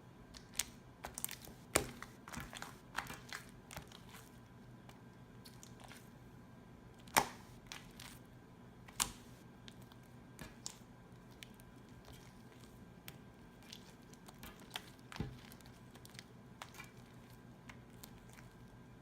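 Sticky glue-and-borax slime being worked and punched by hand, making irregular sticky clicks and crackles. They come thickly in the first few seconds, then more sparsely, with a few sharper pops, the loudest about seven seconds in.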